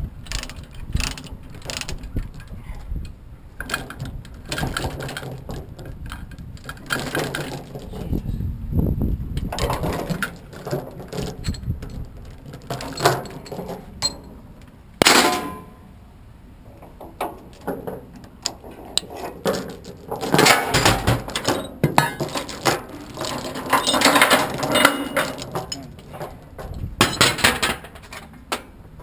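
Steel tie-down chains clanking and rattling as they are dragged across the trailer deck and dropped into a steel chain box. A steady run of clanks and knocks, heaviest in the last third.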